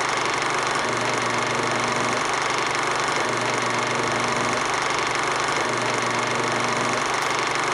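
Steady drone of an engine running, with a constant low hum.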